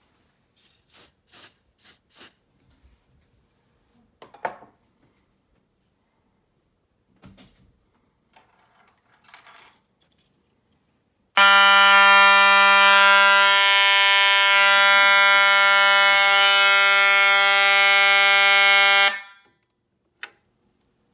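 A few light handling clicks and knocks, then a fire alarm sounder comes on with a loud, steady buzzing tone. It holds for about eight seconds and cuts off, signalling that the photoelectric smoke detector under test has gone into alarm. A single click follows near the end.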